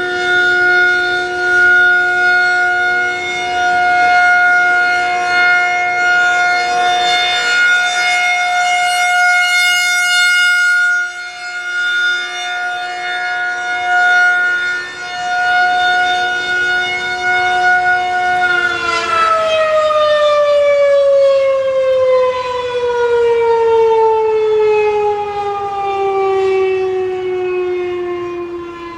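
Federal Signal 2001-130 rotating outdoor warning siren sounding a steady tone that swells and fades in loudness as the horn turns. About two-thirds of the way through the tone stops holding and the pitch falls steadily as the siren winds down at the end of the test.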